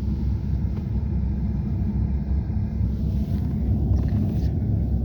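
Steady low rumble of a car driving, heard from inside the vehicle.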